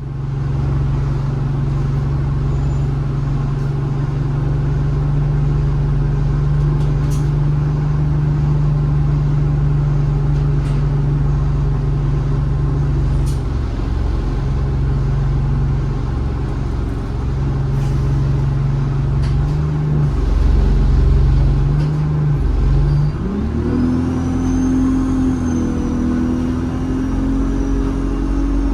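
ADL Enviro 200 bus engine idling steadily, with a few short clicks. About twenty-three seconds in it revs up as the bus pulls away, and the turbocharger's high whistle rises over it and holds.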